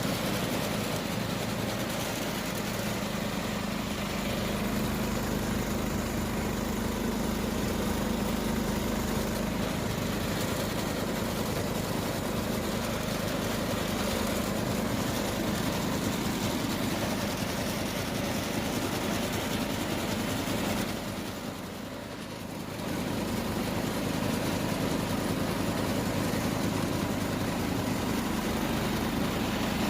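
Case Ingersoll garden tractor engine running steadily, dipping briefly in level about three-quarters of the way through.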